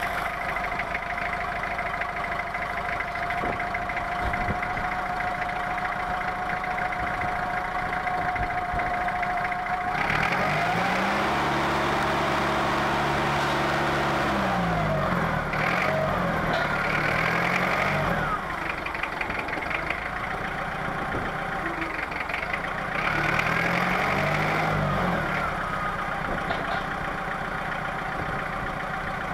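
Perkins diesel engine of a Lansing Bagnall FODR6 forklift running at idle with a steady high whine over it, then revved up while the mast is raised. The revs climb and waver for several seconds from about ten seconds in, drop back, and rise once more briefly a few seconds later.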